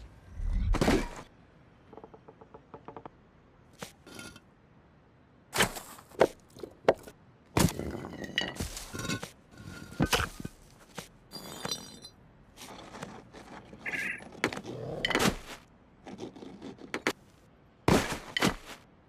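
A series of irregular thuds, knocks and scrapes, with several louder crashes, spread over the whole stretch.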